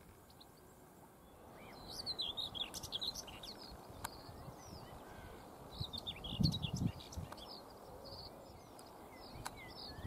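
Common whitethroat singing short, fast, jumbled phrases, about two seconds in, around six seconds in and again near the end. A low thud comes about six and a half seconds in.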